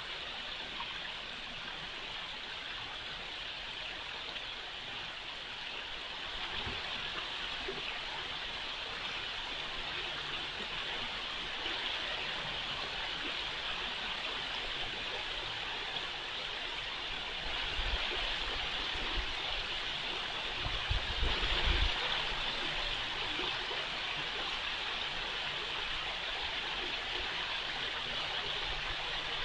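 Steady rush of flowing water, floodwater released by a burst above-ground pool, with a few low bumps about two-thirds of the way through.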